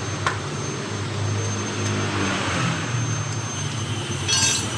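Steady low mechanical drone, with a sharp click shortly after the start and a brief rapid rattling burst near the end.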